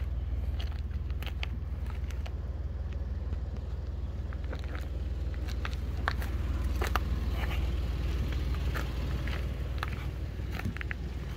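Scattered crunches and crackles of footsteps and brushing on a dry, stick-strewn forest floor, over a steady low rumble.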